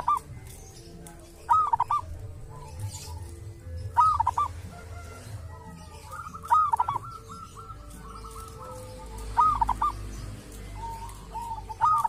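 Zebra dove (perkutut) cooing: short phrases of a few clipped, arching notes around one pitch, repeated about every two and a half seconds. Softer runs of quick repeated notes fill the gaps between phrases.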